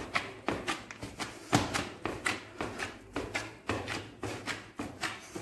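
Gloved hands kneading a tub of spiced ground-meat sucuk mixture: a run of irregular wet slaps and squelches, two or three a second, as the meat is pressed and folded to work it into a sticky paste.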